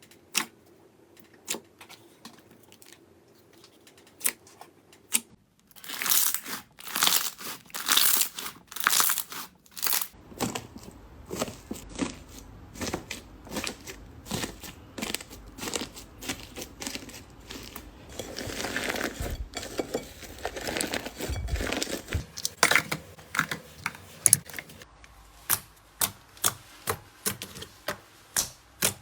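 Slime being squeezed and pulled, making sharp clicks and crackles: sparse at first, much denser about six seconds in, with a run of quick, evenly spaced clicks near the end.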